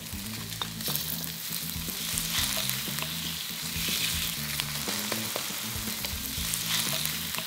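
Diced chicken thigh and red onion sizzling in hot oil in a wok as they are stirred with a wooden spatula, with scattered light clicks of the spatula against the pan.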